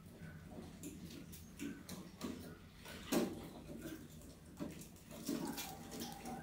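Mice moving on and around a glass box trap with a wire-mesh lid: scattered light taps and scrabbling, with a louder knock about three seconds in.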